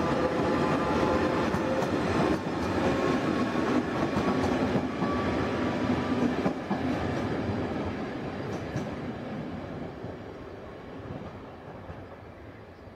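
ČD class 242 electric locomotive hauling passenger coaches past, with a rumble of wheels on rails and clicks over the rail joints. A few steady tones sound in the first seconds, and the whole sound fades over the second half as the train pulls away.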